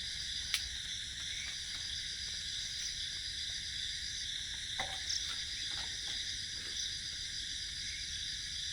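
Steady, high chorus of insects chirring in the orchard, with a sharp click about half a second in and a few faint knocks around five seconds.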